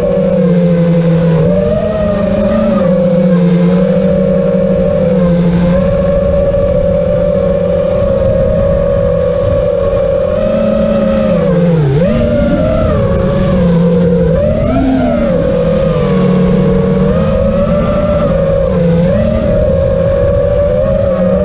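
RC car's motor running hard at speed, its pitch wavering with the throttle and dropping sharply about twelve seconds in, then climbing back as it slows for a turn and accelerates again.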